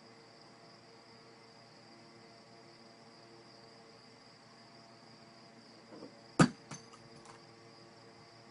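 A small object that the cat knocks about on a wooden dresser gives one sharp knock about six and a half seconds in, then two lighter taps as it bounces. Under it runs a faint steady hiss with a thin high whine.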